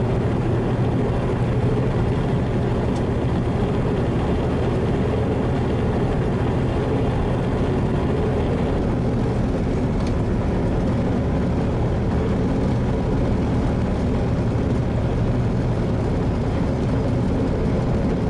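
Steady engine drone and road noise inside a semi-truck's cab, the tractor-trailer cruising at highway speed.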